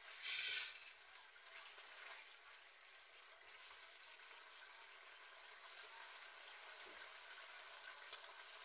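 Chicken pieces sizzling in thick tomato sauce in a nonstick wok, with a faint, steady sizzle. In the first second a louder hiss rises as the pieces are stirred with a plastic spoon.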